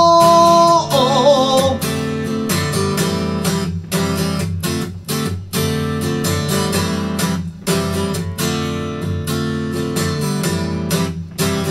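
A man's sung note, held and then wavering, ends a second or two in. Then an acoustic guitar is strummed in a steady rhythm: an instrumental break between sung lines.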